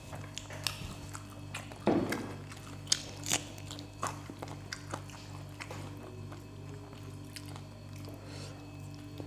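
Close-up eating sounds of people eating rice and curry with their hands: chewing, lip smacks and small clicks, over a steady low hum. A louder brief thump comes about two seconds in.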